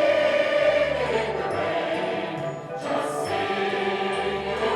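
Music: a choir of voices singing held notes over an accompaniment with a bass line.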